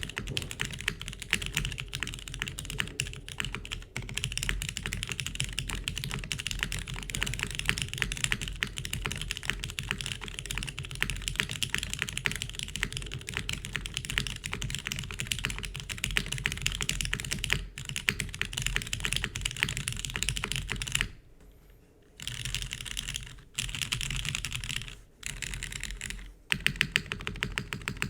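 Fast continuous typing on a custom mechanical keyboard with linear Cherry MX Black switches in an O-ring-mounted carbon fibre plate, the keystrokes running into a dense clatter. Typing breaks off briefly about 21 seconds in and twice more near the end.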